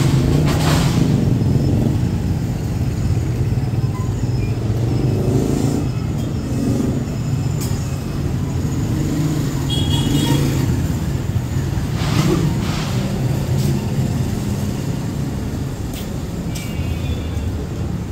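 City street traffic: a steady low engine rumble of passing road vehicles, with a few brief sharp noises.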